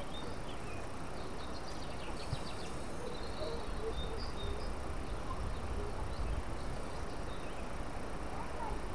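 Riverside ambience: small birds chirping here and there over a steady hiss and low rumble, with a faint constant high whine like an insect.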